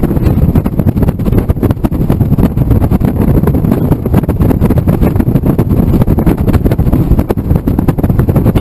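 Loud, steady wind buffeting and road noise in the open cockpit of a Honda S2000 roadster cruising at highway speed with the top down.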